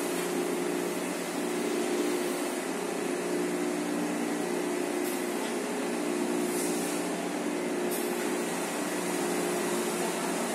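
Steady hum of factory machinery in a tissue paper converting plant, with a few low tones that waver slightly. Several short hisses are heard in the second half.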